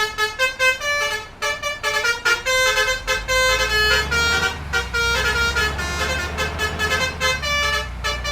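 Bus telolet horn of the basuri type playing a quick tune of short, shifting honking notes, several a second. A low rumble comes in about three seconds in and runs under the horn.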